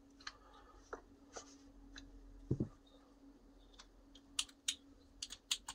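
Small clicks and taps of 3D-printed plastic parts, a metal rod and a spring handled and fitted together by hand. There is one duller knock about two and a half seconds in, then a quick run of sharp clicks near the end, over a faint steady hum.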